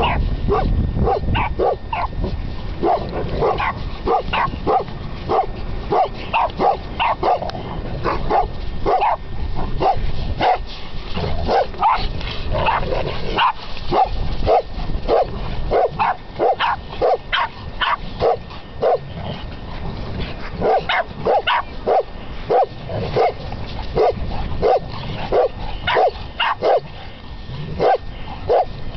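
Dogs barking over and over as they play rough together: short barks, one or two a second, with brief pauses between runs.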